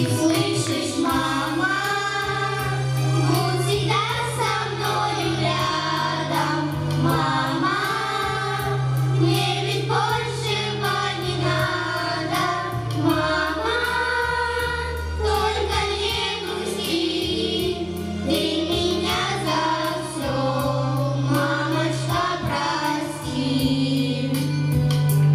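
A mixed group of children and adults singing a song together into microphones, over instrumental accompaniment with long held bass notes that change every few seconds.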